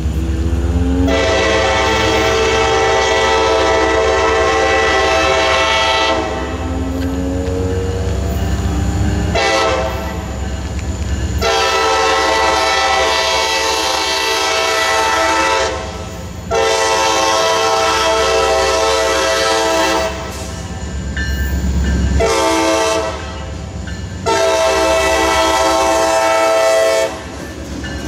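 Air horn of an approaching CSX freight's diesel locomotive sounding a string of long blasts broken by one short blast near the end, the signal for a grade crossing. Under the horn runs the low rumble of the diesel locomotives drawing closer.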